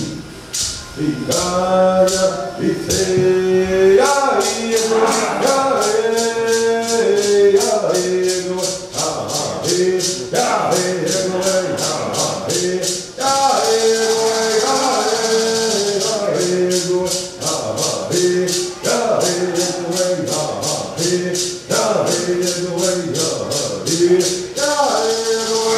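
A Cherokee social dance song: singing, with a shaken rattle keeping a steady beat that quickens about four seconds in.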